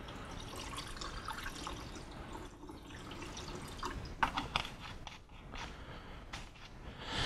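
Liquid fixer poured from a plastic bottle into the light-trap funnel of a Paterson film developing tank, trickling until about two and a half seconds in. A few light clicks and knocks follow as the bottle is lifted away and set down.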